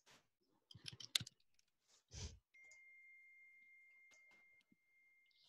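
Faint clicks of a computer being operated while a screen share is set up: a quick cluster of sharp clicks about a second in, then a soft thump, then a faint steady high tone for about two seconds.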